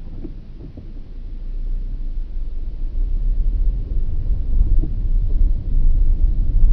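Low rumble of a Skoda Octavia A7 pulling away from a standstill, growing steadily louder as it gathers speed, heard from a dash camera inside the cabin.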